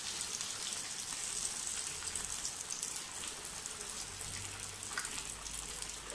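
Breaded chicken cutlets deep-frying in hot oil in a pan: a steady, dense crackling sizzle.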